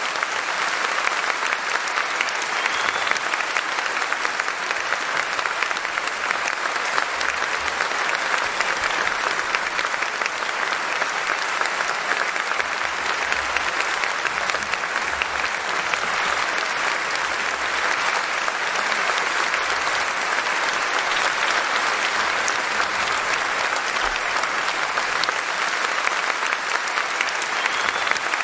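Audience applauding steadily, a sustained even clapping that does not fade.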